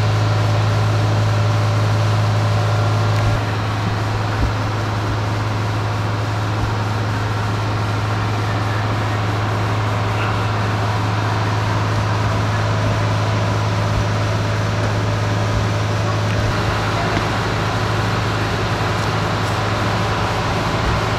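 Steady low drone of an idling engine over a hiss of background noise; the drone drops slightly about three seconds in.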